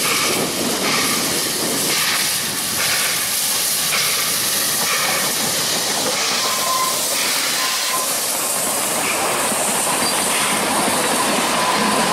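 NGG16 Garratt steam locomotive No. 129 working past at close range, hissing steam over a regular chuffing exhaust beat. Its carriages then roll by on the rails.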